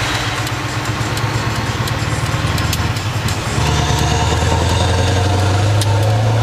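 Scania 164L 480's V8 diesel engine heard from inside the cab, pulling steadily at low revs as the truck drives off. About three and a half seconds in the engine note gets louder and fuller as it takes more throttle.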